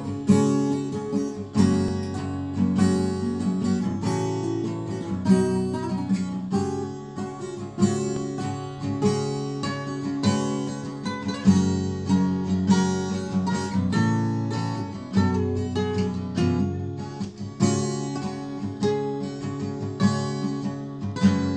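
Two acoustic guitars played together, one strummed with a capo on the neck while the other plays along, in a steady rhythm of plucked and strummed chords.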